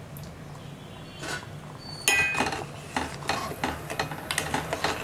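A metal spoon stirring sugar and water in a stainless steel pot, scraping and clinking against the pot in quick repeated strokes from about two seconds in, as the sugar is dissolved for syrup. A low steady hum runs underneath.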